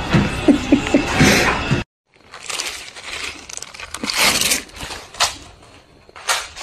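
A clear plastic bag crinkling and rustling in irregular bursts as an animal noses and chews into it. Before this, a stretch of other sound with a few short chirps cuts off abruptly about two seconds in.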